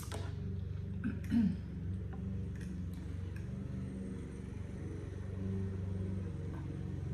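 Steady low hum, with a few faint clinks of a metal fork against a plate as noodles are twirled.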